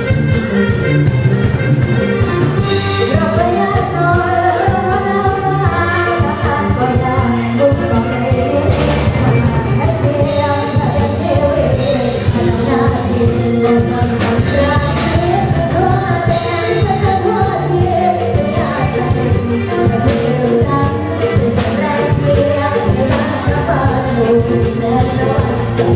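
A woman singing an Isan luk thung song live into a microphone, backed by an amplified band with a drum kit keeping a steady beat.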